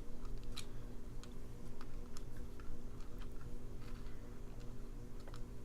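Scattered light clicks and taps of small lock pins and tools being handled on a work surface during disassembly of a padlock, over a steady low hum.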